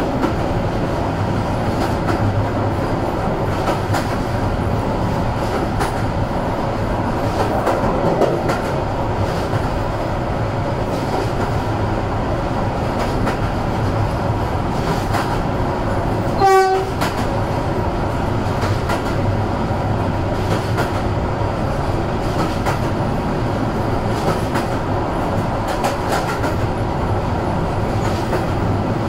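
Passenger train running along the line, with a steady rumble and clatter of wheels on the rails. About halfway through comes one short, loud horn blast from the locomotive.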